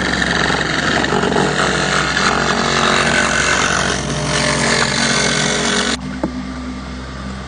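Water spraying and splashing onto the river surface beside the pontoon hull, a steady rushing over a constant low machine hum. The rushing cuts off suddenly about six seconds in, leaving the hum and a single click.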